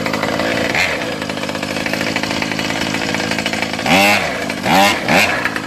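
Small two-stroke grass-trimmer engine driving a remote-controlled longtail boat, running steadily with a buzzing note, with a few short louder swells near the end.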